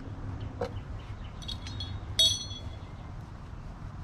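Small metal parts clinking as motorcycle license plate bracket hardware is handled: a light click, a few soft clinks, then one sharp ringing metallic clink a little after two seconds, over a low steady background hum.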